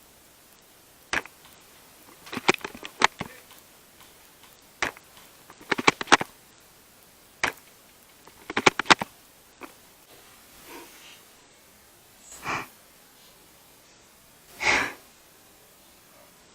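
Tokyo Marui VSR-10 G-Spec spring airsoft rifle being fired and its bolt cycled, three times over. Each time a single sharp shot is followed about a second later by a quick run of bolt clicks. After that come a lone click and then a few softer, breathy sounds near the end.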